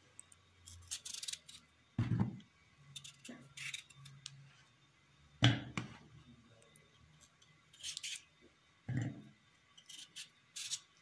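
Kitchen knife cutting through raw peeled potato held in the hand, in short crisp slicing strokes, with three dull thuds as pieces land in a plastic bowl, the loudest about halfway through.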